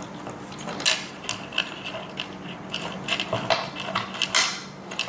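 Scattered metallic clicks and ticks, a few a second, from bolts being turned by hand into the table frame, with a short rustle about four seconds in.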